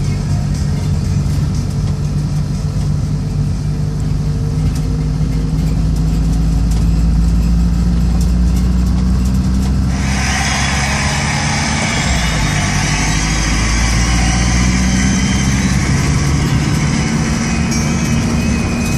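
Engine of a slow-moving motor vehicle running steadily, its pitch drifting gently up and down. About halfway through, a rush of wind and road noise comes in over it.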